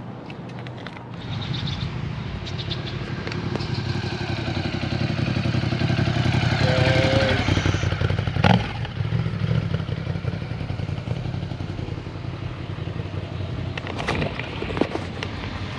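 Motorcycle engine running. It picks up about a second in and grows louder over the next several seconds, with one sharp knock near the middle.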